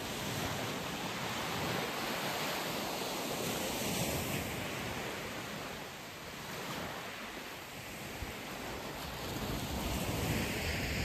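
Small waves breaking and washing up a shingle beach: a steady hiss of surf that swells and eases over a few seconds.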